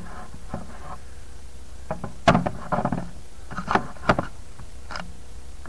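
Scattered knocks, taps and rustles of things being handled and set down on a worktable, the loudest about two and a half seconds in, over a low steady hum.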